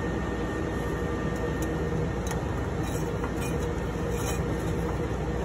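Steady machine hum and air noise of an equipment room, with a few faint light clicks as a cooling fan and its wiring connectors are handled.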